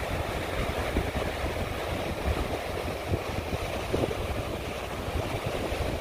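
Strong wind buffeting the microphone, a heavy, unsteady low rumble, over the wash of ocean surf.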